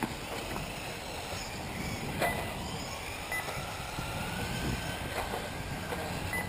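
Electric 1/8-scale RC buggies racing on the track, their motors whining up and down in pitch over a steady background rush, with a few sharp knocks.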